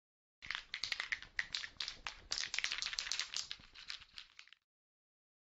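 A rapid, irregular run of sharp clicks and crackles for about four seconds, which then stops.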